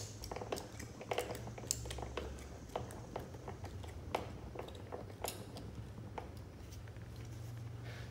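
Irregular small metallic clicks and taps of a 6 mm Allen driver turning in the motorcycle's seat bolts, over a steady low hum.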